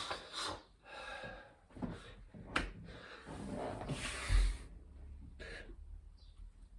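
Heavy breathing and hard exhales of a man doing burpees, with a sharp knock about two and a half seconds in and a low thud a little over four seconds in as his body drops to and pushes off the floor.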